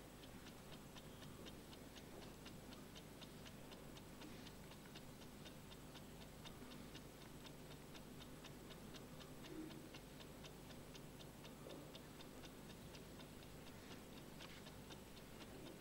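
A clock ticking steadily and faintly with evenly spaced ticks over a low hum, in time with a player running out of time on the chess clock.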